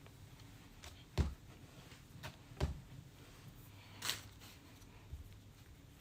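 A lump of clay being worked by hand on a canvas-covered wedging board: three soft, dull thuds as it is pressed down, with a brief scuffing sound about two-thirds of the way through.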